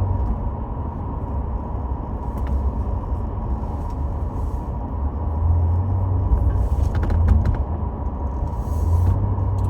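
Steady low vehicle rumble that swells and eases a little, with a faint steady hum above it and a few light clicks about seven seconds in.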